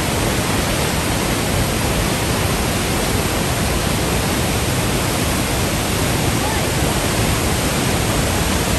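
Athabasca Falls, the Athabasca River pouring over the falls: a loud, steady rush of falling water.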